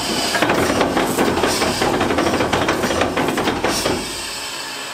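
Type 69-II tank's 38.8-litre V12 diesel engine running on its first start in 29 years, a loud, dense clatter with hiss. The clatter stops abruptly about four seconds in, leaving a lower steady hum.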